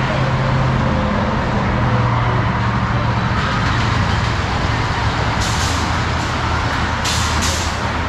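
Steel roller coaster train rumbling along its steel track, a steady low rumble with a shifting hum. Three short bursts of hiss come in the last few seconds.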